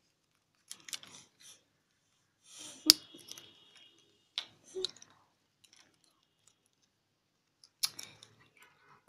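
Plastic parts of a toy fighter plane that converts into a robot being handled and snapped together by hand. Scattered clicks and light rattles, with one sharp snap about three seconds in followed by a brief high squeak, and another cluster of clicks near the end.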